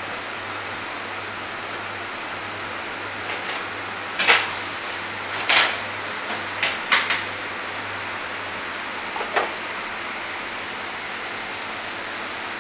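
Kitchenware being handled over a steady hiss of kitchen ventilation: a handful of sharp clinks and knocks of pans, utensils and bottles, in small clusters between about four and nine and a half seconds in.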